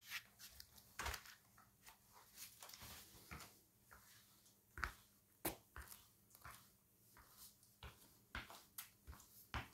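Footsteps of Fila trainers on a hard floor: soft, irregular knocks and scuffs as the wearer walks up, the sharpest ones about five seconds in.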